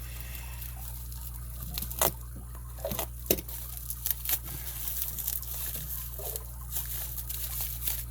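Handling and unwrapping of a packaged lock cylinder: light crinkling and several sharp clicks and taps, over a steady low hum.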